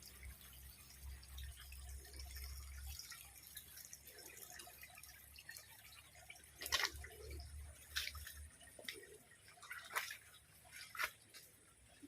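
Water dripping: a handful of separate drops in the second half, over a faint low rumble.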